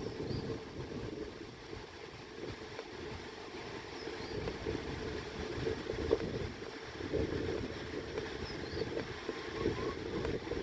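Wind buffeting the microphone, a gusting low rumble that rises and falls, with a few faint high chirps now and then.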